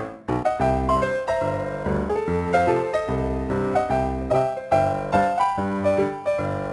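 Background piano music playing a steady run of repeated notes, briefly breaking off right at the start before picking up again.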